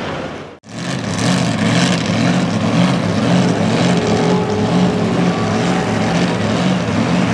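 Super-modified 4x4 pulling truck's supercharged engine idling with a heavy, lumpy, pulsing rhythm. In the first half-second another pulling truck's engine is heard running hard, then it cuts off abruptly.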